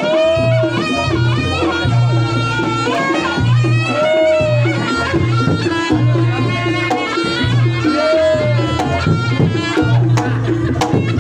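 Reog Ponorogo gamelan music: a reedy slompret melody over kendang drums and a low repeating gong pulse, with sharp drum strokes near the end.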